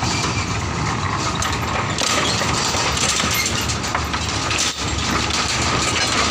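Small Schöma diesel locomotive running as it moves a string of steel tipper wagons slowly past on narrow-gauge track. Its engine makes a steady low rumble, with scattered metallic clicks and knocks from the wagons.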